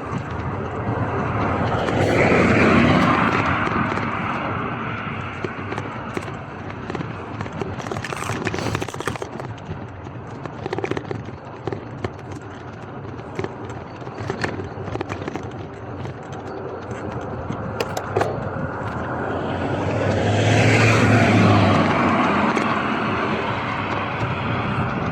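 Two cars passing on a wet road, each a swell of tyre hiss that builds and fades, the first about two seconds in and the second near the end, over steady wind and road noise from the moving bicycle. Scattered small clicks in between.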